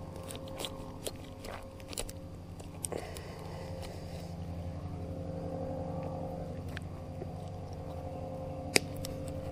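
Handling a small freshly caught fish in grass: scattered small clicks and scuffling, with one sharp click near the end, over a steady low hum.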